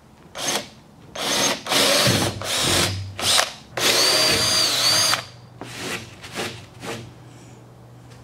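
Cordless drill boring holes through OSB board with a twist bit, run in a string of short trigger bursts. A longer run with a steady motor whine starts about four seconds in, and a few weaker bursts follow before it stops.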